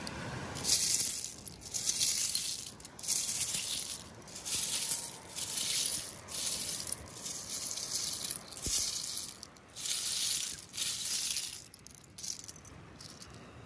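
Footsteps crunching through a beach bed of loose seashells, about one step a second, the shells clattering underfoot.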